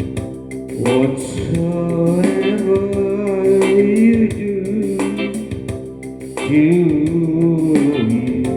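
A man singing a slow hymn melody in long held notes, accompanied on guitar.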